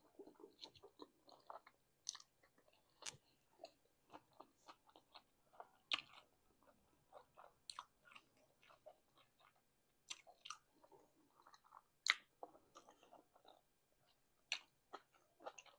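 Faint close-up mouth sounds of a person chewing a cheddar hot link sandwich with peppers and onions: scattered wet smacks and clicks, with a few sharper smacks now and then.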